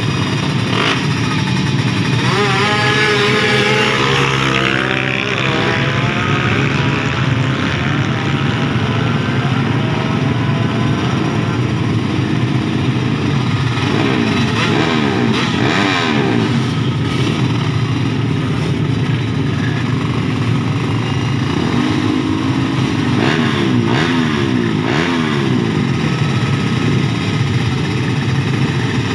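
Drag-racing motorcycles revving at the start line, their engines climbing and dropping in pitch several times over the steady running of other bikes.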